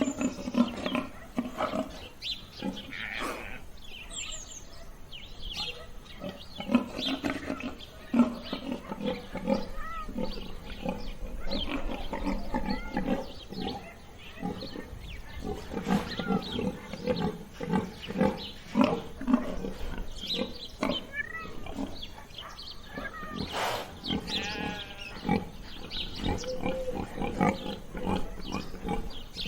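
Pigs grunting over and over in short bursts, with a few higher squeals.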